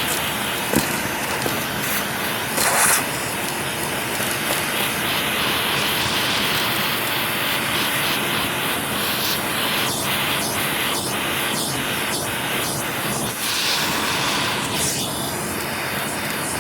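Vacuum cleaner running steadily on a car's carpet, sucking up gritty debris that crunches and rattles through the nozzle, with a run of quick rattles in the second half.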